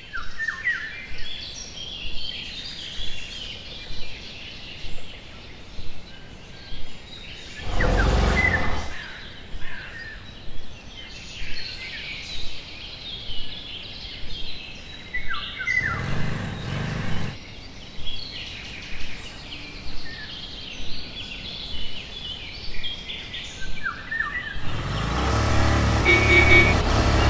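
Birds chirping and singing, with a sharp pulse about once a second. Three louder swells with a low rumble rise over it: about a third of the way in, just past the middle, and the loudest near the end.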